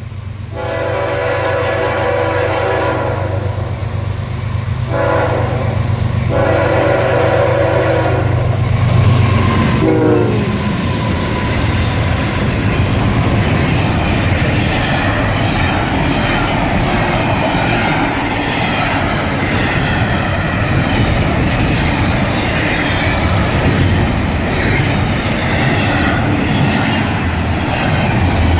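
Diesel locomotive horn blowing two long blasts over a low engine rumble, then the train passing close by, with its wheels clattering over the rail joints.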